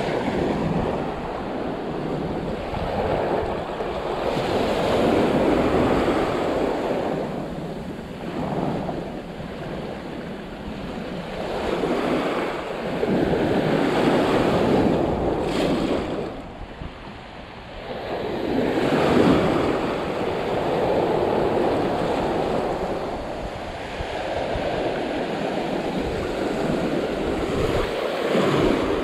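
Surf breaking and washing up the beach, swelling and easing every several seconds, with wind buffeting the microphone.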